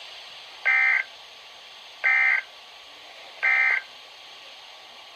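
NOAA Weather Radio EAS end-of-message (SAME) data bursts: three short, shrill, warbling data bursts about a second and a half apart over a steady hiss, the signal that closes the flood warning broadcast.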